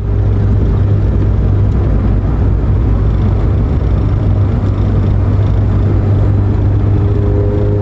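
Car on the move: a steady low engine drone with road and wind noise.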